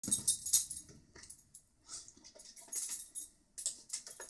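Metal tags on a Shiba Inu's collar jingling in a series of short bursts as the dog moves about.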